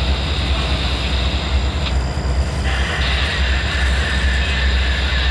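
Intermodal freight train of double-stack container well cars rolling past with a steady low rumble. A high hiss rides over it, cutting out for a moment about two seconds in and coming back.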